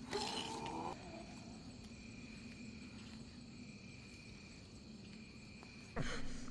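Steady chorus of night insects with fixed high trilling tones. A brief vocal sound comes in the first second, and a sudden louder vocal sound near the end.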